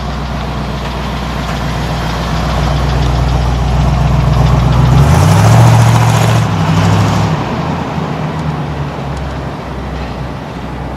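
The 1975 Chevrolet K5 Blazer's rebuilt 350 V8 running. It grows louder, rises in pitch about five seconds in, then fades away.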